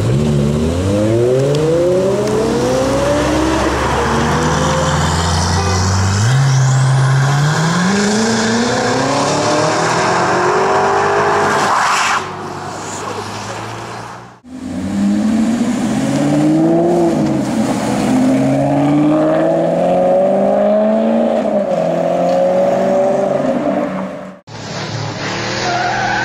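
BMW M5 F10 twin-turbo V8 accelerating hard, its note climbing in pitch through the gears with an upshift about six seconds in. After a sudden cut, more engine revs rise and fall. Near the end comes a short engine-and-tyre-squeal sound.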